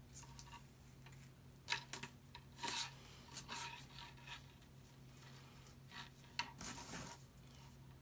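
Braided metal picture-hanging wire being handled and pulled against a wooden board: a scattering of short, faint rubbing and scraping strokes, with two longer scrapes, one a little under three seconds in and one near the end.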